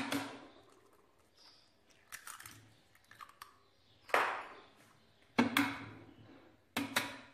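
Eggs being cracked against the rim of a plastic food-processor bowl: several sharp cracks a second or more apart, each followed by a brief crackle of breaking shell.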